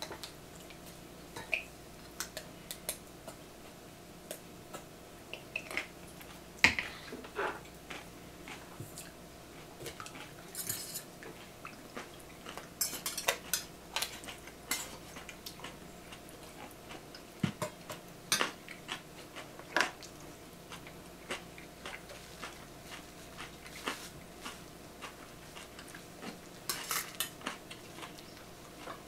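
Metal cutlery clinking and tapping against stainless-steel bowls and a glass baking dish during a meal, in scattered separate clicks with a faint steady hum underneath. Near the end a ladle scoops in the glass baking dish.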